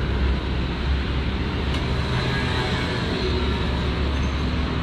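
Steady road traffic noise from a busy intersection, with a deep engine rumble that is strongest near the start and swells again past the middle.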